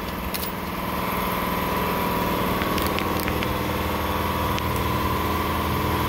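Steady mechanical hum of a running machine, even throughout, with a few light clicks and taps of metal parts being handled.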